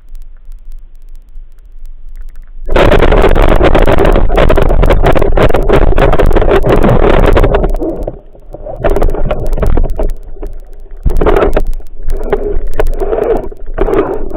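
Water rushing and bubbling against an underwater camera as the diver moves, starting suddenly about three seconds in, loud and steady for about five seconds, then coming in shorter bursts about a second long.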